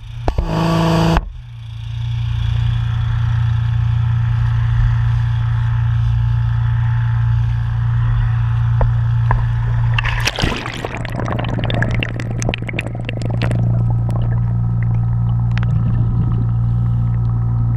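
A small engine running steadily with a low, even hum. About ten seconds in, splashing and bubbling as the camera goes under water, then the hum carries on with scattered small clicks and bubbles.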